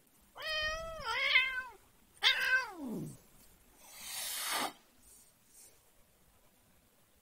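Domestic cat meowing in protest at being pestered: a drawn-out two-part meow, then a second meow that slides steeply down in pitch, then a short breathy hiss about four seconds in.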